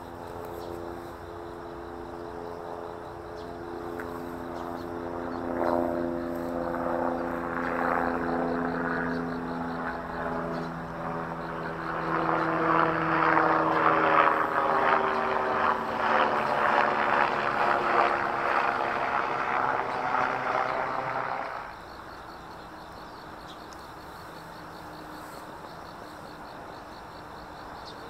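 Aircraft passing overhead: a droning engine whose tones slowly fall in pitch as it grows louder, then cuts off abruptly about three-quarters of the way through.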